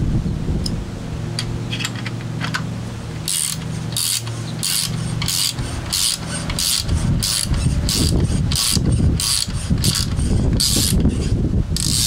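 Small hand ratchet clicking through quick back-and-forth strokes while working screws on a vapor separator tank. There are a few faint clicks at first, then about two to three bursts a second from about three seconds in, over a low steady hum.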